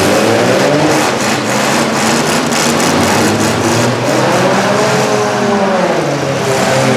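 Demolition derby cars' engines revving hard at high throttle, the pitch climbing and dropping as they push and ram, with scattered knocks from the cars colliding.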